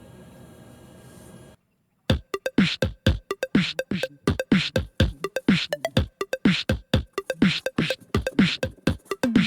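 Background electronic music with a steady drum-machine beat of thumping kicks and hissy hits. It starts about two seconds in, after a faint steady hum that cuts to a moment of silence.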